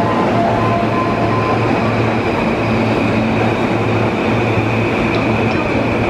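E233-1000 series electric train standing at the platform with its onboard equipment running: a steady low hum with a thin high whine that grows stronger about a second in.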